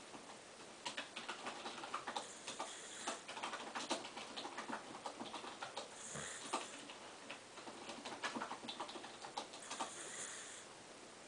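Computer keyboard typing, a faint irregular clacking of keys. Mixed in are a sleeping dog's soft snoring breaths, three in all, about four seconds apart.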